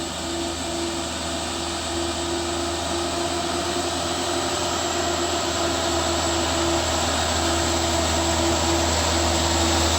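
Tour bus diesel engine working hard up a steep climb, a steady drone that grows slowly louder as the bus approaches.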